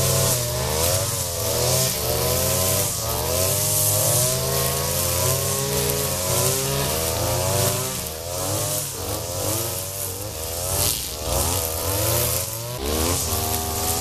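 Two-stroke petrol brush cutter (strimmer) running close by while cutting grass. Its engine pitch keeps rising and falling with the throttle.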